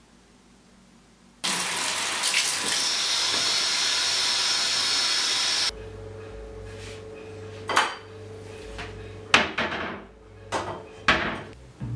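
Kitchen tap running into a sink for about four seconds, then shut off; a handful of sharp knocks and clatters follow, over a low hum.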